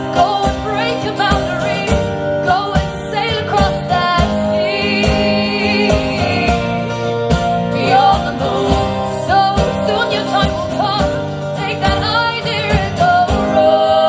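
Live folk-pop song: female voices singing long, wavering held notes over steadily strummed guitar.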